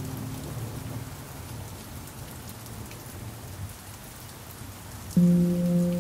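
Steady rain on a surface, with a low pan drum note ringing away during the first second. About five seconds in, a new low pan drum note is struck suddenly and rings on with its overtones.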